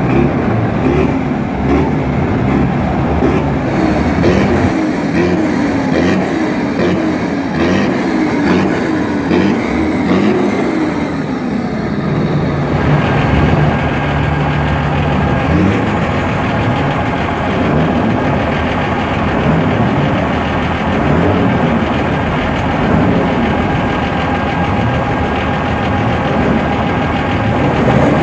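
Many farm tractors' diesel engines revving up and down together, their pitches rising and falling over and over in one continuous din. A steady low drone stands out for a couple of seconds about halfway through.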